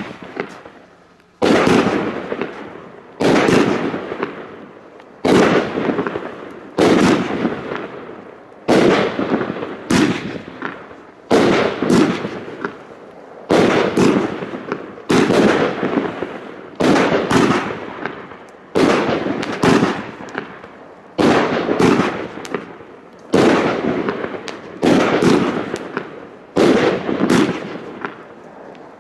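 Funke 'Valentin' 25-shot firework battery firing, one shot bursting every second or two, each burst fading away before the next.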